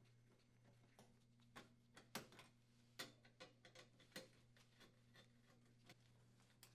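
Near silence with a faint low hum and a scattering of faint, short metallic clicks and ticks, most of them between about one and a half and four and a half seconds in: a screwdriver working screws out of the sheet-metal access plate on the back of the wall oven.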